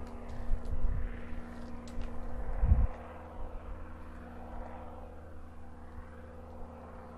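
A steady engine hum, with gusts of wind rumbling on the microphone during the first three seconds.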